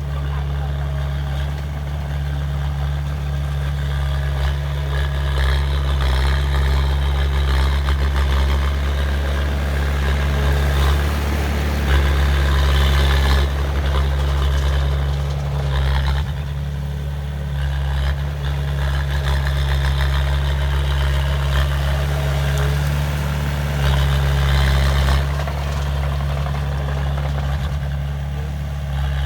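Heavy diesel engine of earth-moving machinery running steadily with a deep hum, swelling louder now and then as it works.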